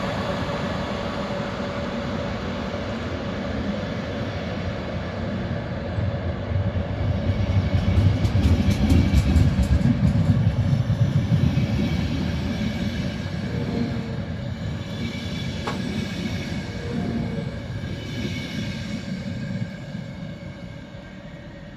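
Czech Railways passenger train pulled by an electric locomotive rolling past, its coaches' wheels rumbling and clicking over the rails. It is loudest about eight to eleven seconds in, then fades as the train moves away.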